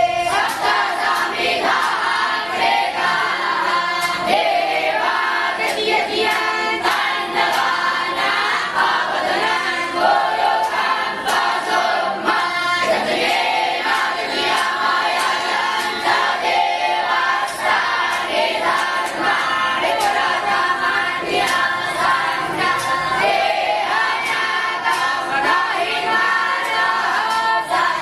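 A group of young boys' voices singing or chanting together in chorus, continuously.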